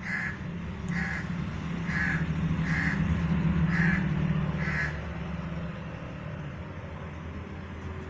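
A crow cawing six times in a steady series, about one call a second, then falling silent. A low rumble runs underneath, loudest in the middle.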